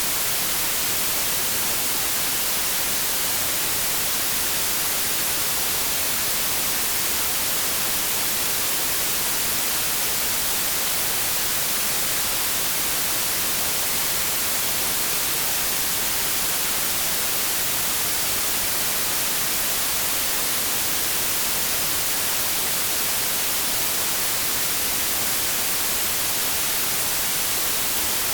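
Synthetic white noise playing as a steady, unchanging hiss, brighter in the treble than in the bass.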